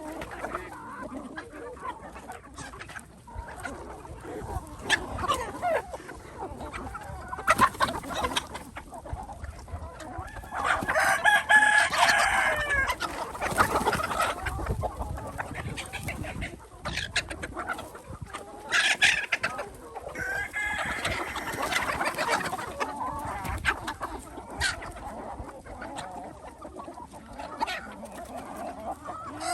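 A flock of chickens clucking steadily, with a rooster crowing twice, each crow lasting a few seconds. Scattered short clicks run through it.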